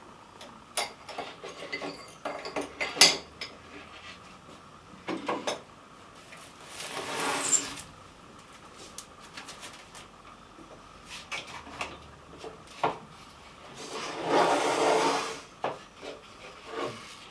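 Toiletry bottles, jars and a wooden tray being picked up and set down off wooden bedside tables: scattered clinks and knocks. There are two longer scraping, sliding sounds, one about seven seconds in and one about fifteen seconds in.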